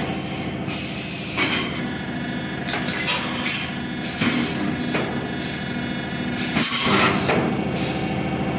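Automatic steel grating resistance welding machine running: a steady hum, broken every second or so by short clanks and hissing bursts.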